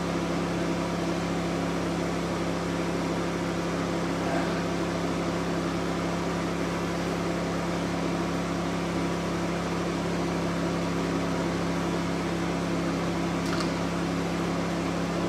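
Steady machine hum with several fixed low tones and a light hiss, from a running diode laser hair removal machine.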